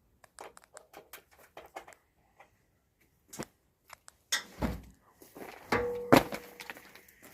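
Metal hand tools being handled: a run of light clicks, then several loud metallic knocks and clanks, one of them ringing briefly.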